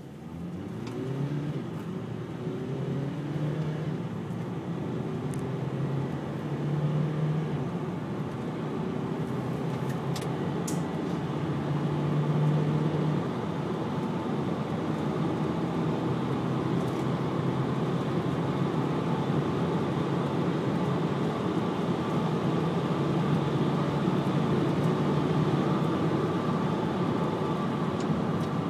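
Volkswagen Caddy TDI turbodiesel engine heard from inside the cabin under hard acceleration through the gears. The engine note rises with the revs and drops back briefly twice at gear changes, over a steady rush of road noise as the van gathers speed.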